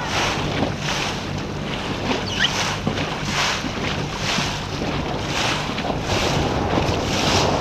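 Wind buffeting the microphone over the rush and slap of choppy water against a small boat's hull, with hissy surges recurring about every half second to second. A low steady hum runs underneath.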